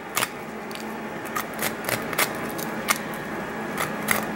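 Chef's knife cutting along the backbone inside the gutted belly of a branzino (European seabass), giving a run of sharp, irregular clicks as the blade nicks through bone. It is slitting open the bloodline along the spine so the blood can be washed out. A steady background hum runs underneath.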